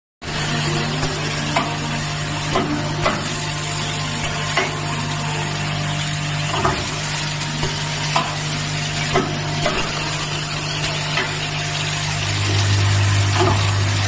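Terminal crimping machine running with a steady hum and hiss, with irregular sharp clicks about every second or so as the wire and terminal strip are handled at the applicator. About twelve seconds in, the hum gets louder and deeper.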